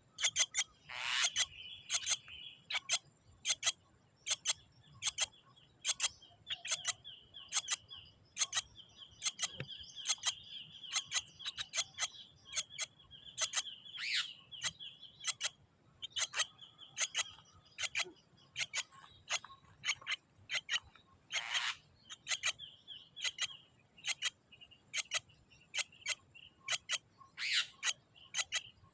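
Javan myna calling: a long run of short, sharp chirps, about one or two a second, broken by a few longer, harsher calls, over a steady high-pitched ringing.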